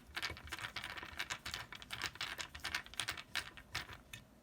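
Screwdriver backing a small screw out of a microscope phototube: a quick, irregular run of small clicks and scrapes that stops near the end.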